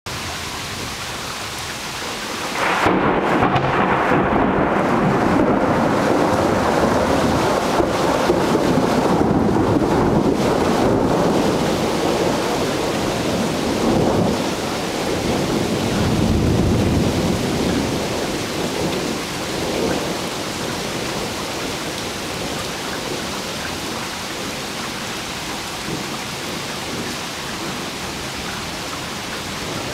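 Thunder rumbling over steady rain. A long peal breaks in about two seconds in, swells again twice, and dies away, leaving only the rain.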